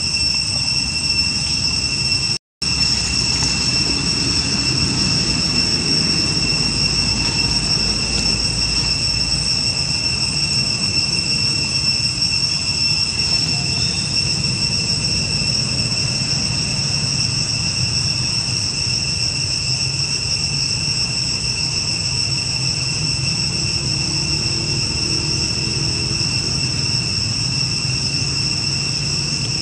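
Steady, high-pitched insect chorus droning without a break over a low rumble; the sound cuts out for a moment about two and a half seconds in.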